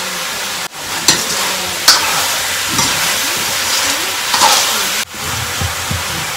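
Spices frying and sizzling in hot oil in a karahi over a wood fire, stirred with a metal spoon that clinks against the pan about a second in, again near two seconds and once more later. The sizzle cuts out suddenly twice, briefly.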